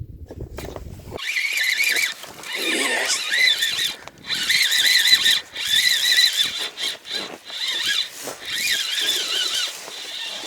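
Spinning reel whining as the handle is cranked, its pitch wobbling with each turn, in long stretches with brief pauses: a hooked fish is being reeled in.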